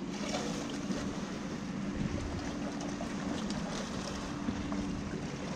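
Boat motor running steadily, a low, even hum under a hiss of wind and water.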